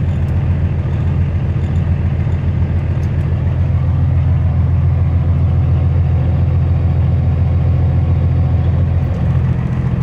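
Cummins ISX diesel engine of a 2008 Kenworth W900L idling with a steady low hum, heard from inside the cab.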